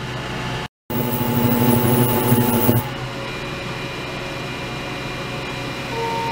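Ultrasonic cleaning tank running: steady hiss of the driven, cavitating water with a low hum. The sound cuts out briefly just under a second in, returns louder, and about three seconds in drops to a quieter steady hiss.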